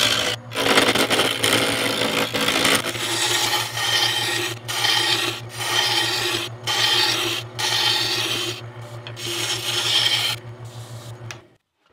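Wood lathe spinning a wooden rolling-pin blank while a wide flat turning chisel shaves it: a steady motor hum under a rough hissing cut that comes in passes with short breaks between them. Everything cuts off shortly before the end.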